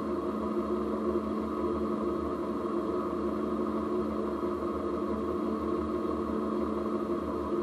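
Jeep running steadily, heard from a camera mounted at the front axle: a constant drone from the drivetrain with a low rumble underneath.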